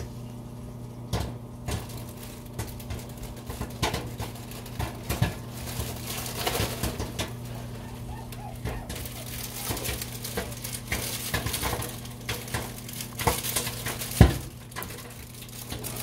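Maytag microwave oven running with a steady hum while microwave popcorn pops inside its bag. The pops are sparse at first, come much faster from about six seconds in, and one sharp pop near the end is the loudest.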